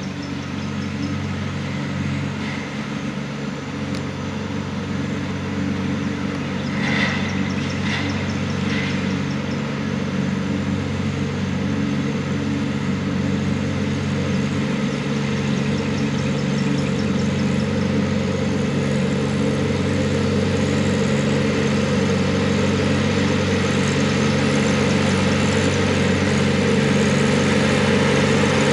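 TYM T264 compact tractor's diesel engine running steadily at about 2,800 rpm to drive a 5-foot finish mower through the PTO at 540, growing louder as the tractor comes closer.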